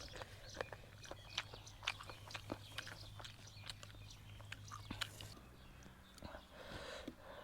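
Close-up eating sounds: a person chewing and biting food with many sharp, crunchy clicks and wet smacks. These ease off about five seconds in.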